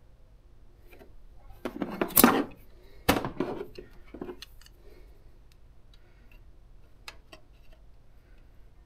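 Metal hand tools (screwdriver and wrench) clinking and scraping against a GY6 scooter engine's valve adjuster while the valve lash is being set. A loud rattling scrape comes about two seconds in, then a sharp clink just after three seconds, followed by a few light ticks.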